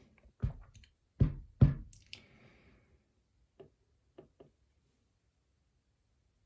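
Three sharp knocks, then a brief scrape and a few faint clicks: a lock being knocked and worked to free a jammed pin from its chamber.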